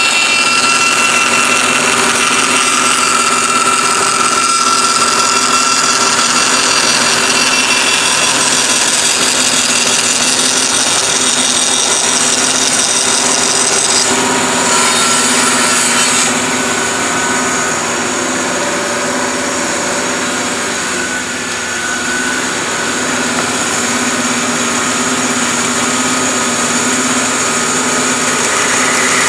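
Bandsaw running and cutting slots into wooden pieces. The sound shifts about halfway through and dips briefly a little later.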